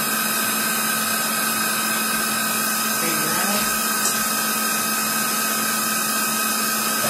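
X-axis power feed of a Millport Blue Rhino 1660 bed mill traversing the table: its DC servo motor runs steadily, a constant whine of a few steady tones over a hiss.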